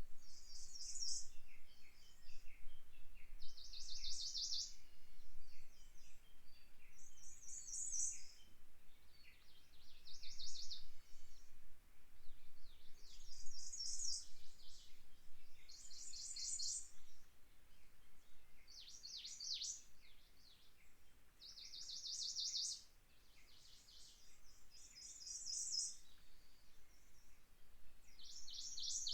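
Small songbirds singing in a forest, short high phrases, many of them fast trills, coming about every two to three seconds, over a faint low wind.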